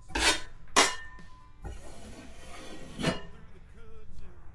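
Metal drywall knife scraping and spreading joint compound over a patch: three short sharp scrapes and one longer, softer scrape about halfway through. Faint music plays underneath.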